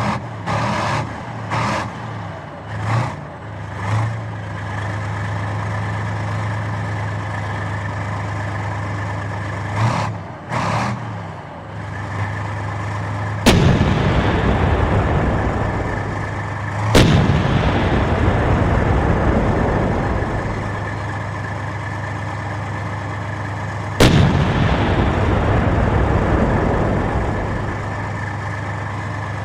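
Tank engine running with a steady low hum, revving in short swells early on and again briefly in the middle. In the second half the tank's main gun fires three times, each a sharp bang followed by a long rumbling decay.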